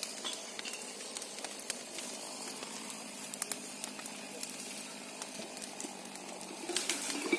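Outdoor work ambience: scattered sharp crackles and rustles over a steady hiss, with a louder stretch near the end.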